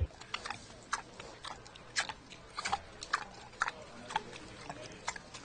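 Pet pig moving about close by: a string of short, irregular clicks, about two to three a second.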